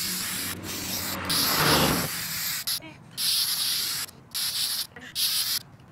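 Aerosol can of 3M 77 spray adhesive spraying in a series of hissing bursts with short breaks between, the longest about a second and a half in.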